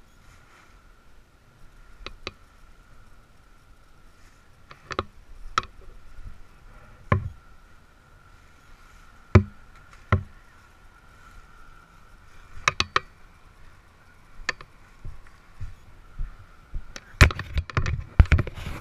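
Handling noise from a parachute canopy and its lines being gathered up by hand: scattered knocks and rustles, a few seconds apart, over a faint steady hum. Near the end comes a quicker, louder run of knocks.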